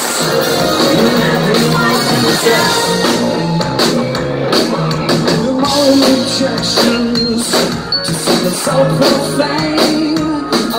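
Live rock band playing loud amplified music on stage, with drum hits, guitar and a singer's voice, recorded from within the audience.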